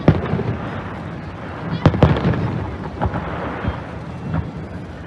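Fireworks bursting in a display: a string of sharp bangs, two of them close together about two seconds in, with rumbling and crackle between the bursts.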